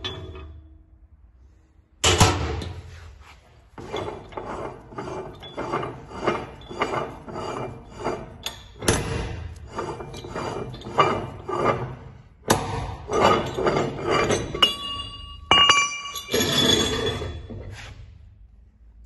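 Metal parts clinking and clattering as they are handled: a run of light knocks at about two a second, with a few sharper clanks. Near the end, brief metallic rings sound before it fades out.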